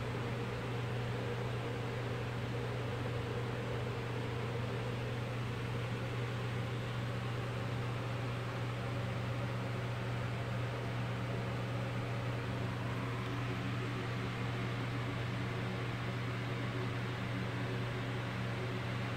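Steady mechanical hum with an even hiss over it, unchanging throughout, like a fan or motor running in the room.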